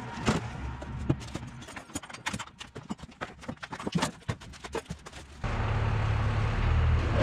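Irregular knocks and clatter of items being handled and moved about in a small truck's bed. About five seconds in, a louder steady low hum with noise abruptly takes over.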